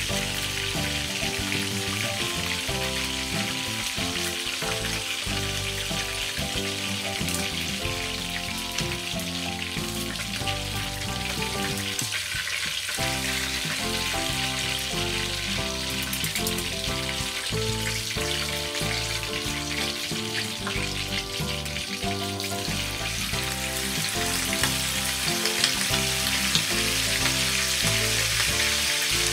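Chicken pieces deep-frying in hot oil in a wok, a steady dense sizzle, getting louder with a few sharper crackles near the end. Background music plays underneath.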